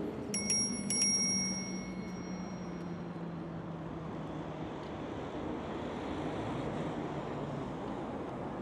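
Street traffic noise with an engine hum that fades over the first few seconds. A few sharp metallic pings ring briefly about half a second to a second in.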